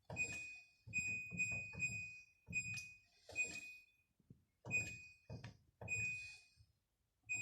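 Washing machine control panel beeping as its buttons are pressed: a run of short, irregularly spaced high beeps, each with a dull click or knock of handling.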